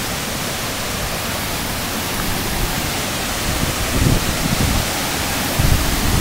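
Waterfall close by: a loud, steady rush of falling water. A few low bumps on the microphone come about four and five and a half seconds in.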